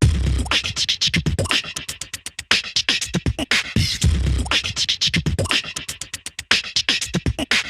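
Background music: a beat-driven electronic or hip-hop track with rapid sharp percussive clicks and deep bass hits every few seconds.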